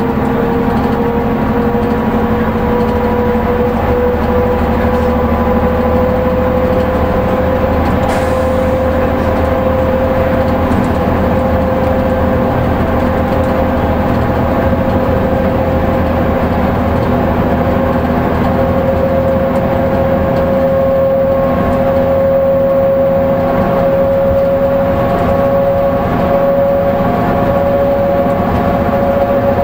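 Leyland Lynx II single-deck bus heard from inside the saloon, its engine and drivetrain running steadily at road speed. A loud whine climbs slowly in pitch throughout, over a steady low drone.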